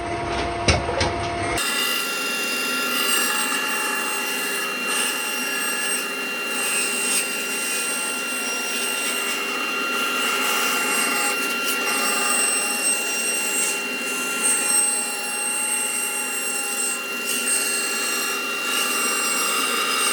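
A power tool running steadily as it cuts and shapes the wood of a tabletop edge: a steady motor whine over rough cutting noise. The sound changes abruptly about a second and a half in, from a stretch with clicks and knocks to the continuous cutting.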